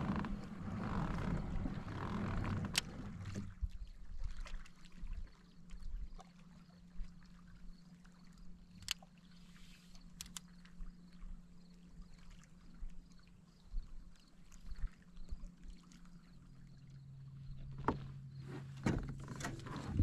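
Kayak on calm water: water sounds and occasional sharp knocks and clicks against the hull, over a faint steady hum that drops to a lower pitch about sixteen seconds in.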